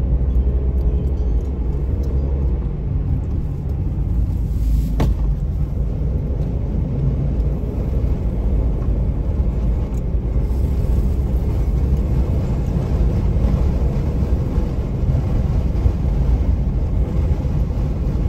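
Car driving slowly, heard from inside the cabin: a steady low rumble of engine and tyres. A single sharp click comes about five seconds in.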